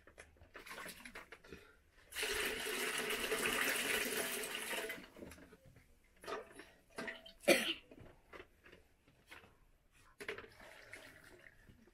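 Water poured for about three seconds into a metal bowl of cut green bananas as they are washed. It is followed by small splashes and knocks of handling, the loudest a sharp knock about seven and a half seconds in.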